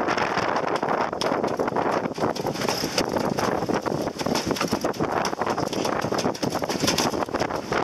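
Wind on the microphone and water rushing along the hull of a sailing yacht heeled and under way, with a rapid, irregular run of clicks and knocks throughout.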